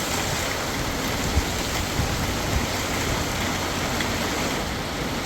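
Heavy monsoon rain falling steadily, an even hiss, with a few faint soft knocks, the clearest about a second and a half in.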